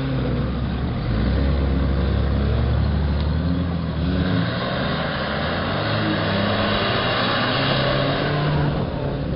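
Lifted pickup truck's engine working under load as it crawls through a mud pit on oversized mud tires. The engine note shifts about four seconds in, and a rushing noise joins it then until near the end.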